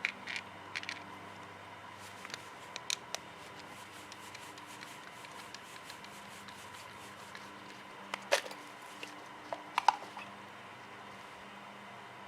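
Scattered sharp clicks and knocks, the loudest about eight and ten seconds in, over a faint steady hum.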